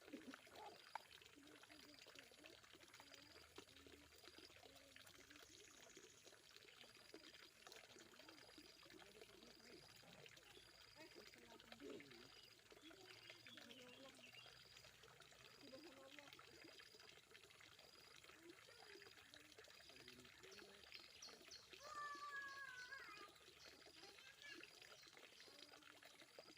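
Faint steady trickle of water running into a fish pond, with a soft high tone repeating about once a second and faint distant voices.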